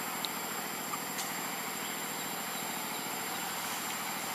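Steady outdoor background hiss with a thin high tone running through it, and a couple of faint ticks in the first second and a half.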